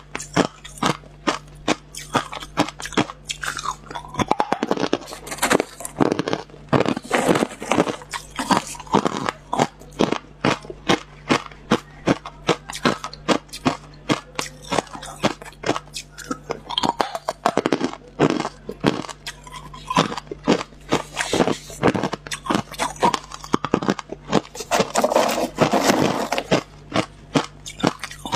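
Hard clear ice being bitten and chewed close to the microphone: a dense run of sharp crunches and cracks, several a second, as chunks of ice break between the teeth.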